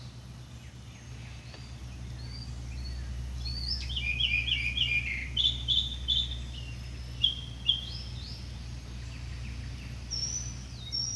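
Birds chirping and singing, with a quick run of repeated chirps about four seconds in, over a steady low hum.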